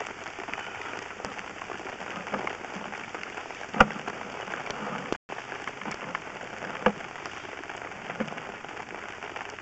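Sewer inspection camera and push cable being fed up a scaled cast iron sewer line, the camera bouncing over the scale: a steady crackling hiss with scattered clicks and knocks. The sharpest click comes about four seconds in, and the sound cuts out for a moment a little after five seconds.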